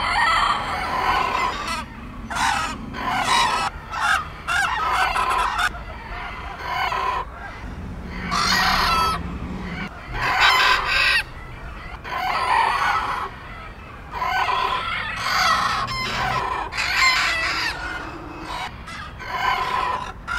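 Several bantam roosters crowing one after another, a crow every second or two, some crows overlapping.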